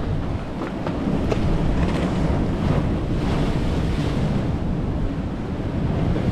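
Sea surf breaking and washing against the rocks of a rocky shoreline, with wind buffeting the microphone as a steady low rumble under it.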